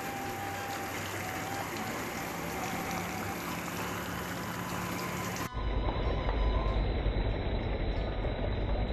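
Heavy rain falling steadily on wet ground and debris, a dense even hiss. About five and a half seconds in it cuts abruptly to a louder, duller rushing with a deep low rumble.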